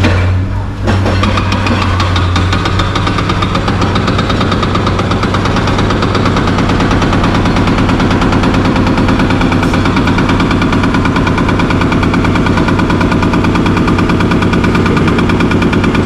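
Excavator's diesel engine running hard, with a fast, even knocking rhythm that sets in about a second in and holds steady.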